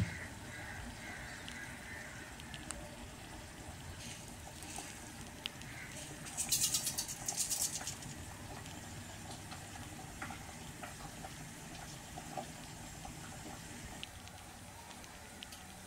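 Mustard seeds dropped into hot oil in a steel kadai: a dense crackling sizzle about six seconds in that lasts under two seconds, then a faint hiss of the oil with scattered small pops from the frying seeds.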